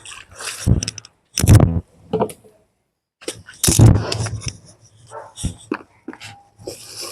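A dog barking several short times, with light clicks and clatter between the barks.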